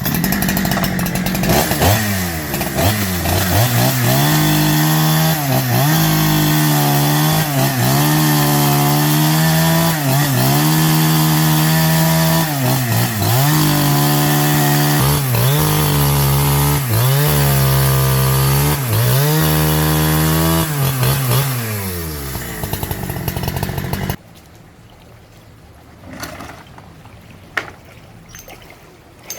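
Husqvarna 365 two-stroke chainsaw engine running after a piston replacement, revved up and down over and over, about once every second and a half. It then winds down and stops about 24 seconds in.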